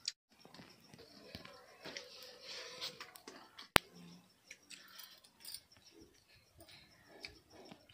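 Two people eating rice with fish curry by hand from steel plates: faint chewing and small scraping and ticking sounds of fingers working the food, with one sharp click a little under four seconds in.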